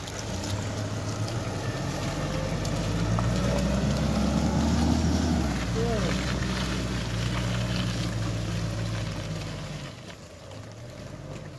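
Mitsubishi Pajero Sport's engine running hard under load as the SUV pulls through a muddy clay track. It grows louder over the first five seconds, holds steady, then fades about ten seconds in as the car moves off.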